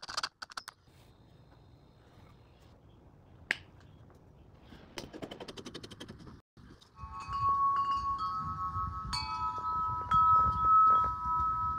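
A large metal-tube wind chime ringing several overlapping sustained tones, starting about seven seconds in, with gusty wind rumbling on the microphone. Before it there is a brief burst of a power drill at the start, then a few clicks and light rattles.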